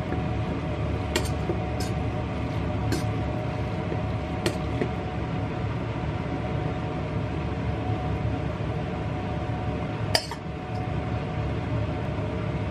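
Kitchenware clinking a few times (about five sharp clinks, the loudest about ten seconds in) over a steady kitchen hum.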